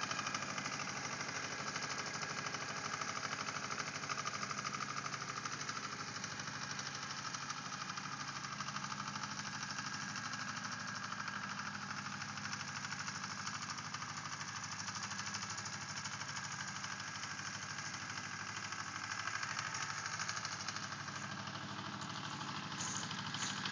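Small Yanmar compact tractor's diesel engine running steadily.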